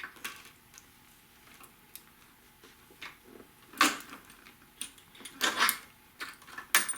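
Several knocks and clunks of a motorcycle fuel tank being handled and set back down onto the frame, the loudest about four seconds in and a cluster of them around five and a half seconds in.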